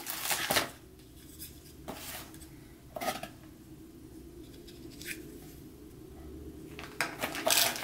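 Hands handling packaging and the small plastic parts of a heart rate monitor. Plastic and cardboard rustle at the start and again near the end, with a few small sharp clicks in between.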